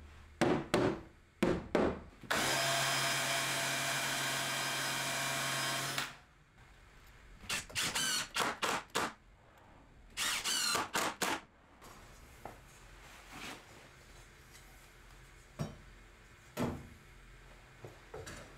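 A mallet knocks about five times on the head of a timber door lining. A drill-driver then runs steadily for about three and a half seconds, followed by two groups of short drill bursts as the lining is fixed in the opening.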